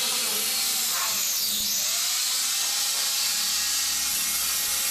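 Electric cutting machine grinding a groove into a masonry wall for concealed pipes, running steadily with a loud high whine. Its pitch dips briefly and comes back up about a second and a half in.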